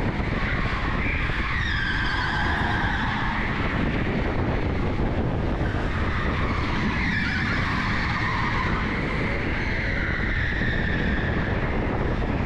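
Onboard sound of an electric go-kart at speed: a steady rumble of the kart, with tyres squealing in long wavering squeals that rise and fall through the corners.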